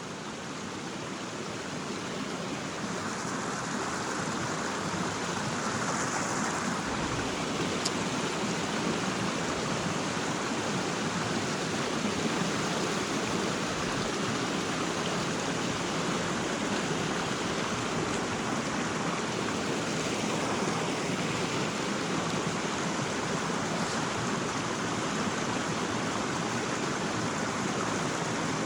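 Creek water rushing over rocks, a steady noise that grows a little louder over the first few seconds.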